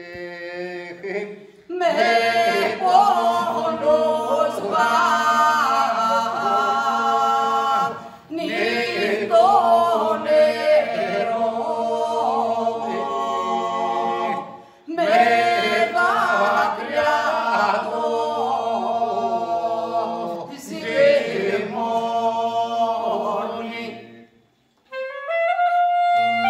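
Several voices singing an Epirote folk song, a steady low drone held beneath the moving melody, in three long phrases with short breaks between. Near the end a clarinet comes in with a rising note.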